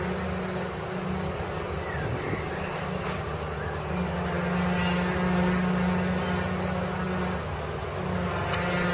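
Diesel engine of a mobile telescopic crane running steadily with a low hum as it holds a tower-crane jib section aloft, growing louder about four seconds in.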